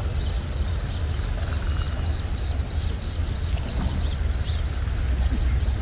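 A steady low rumble, with an animal's high chirp repeating evenly about three times a second.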